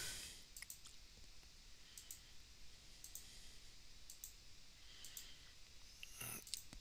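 Faint computer mouse button clicks, a handful of single clicks spaced about a second apart.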